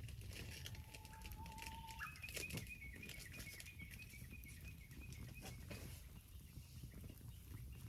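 Wood campfire burning in a small folding fire pit, crackling and popping irregularly, with a thin steady whistle for a few seconds that steps up in pitch about two seconds in.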